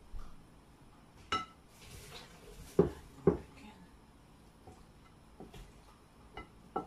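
Chicken wings and hands knocking against a glass mixing bowl while the wings are tossed in flour: scattered knocks and clinks, the two loudest close together about three seconds in.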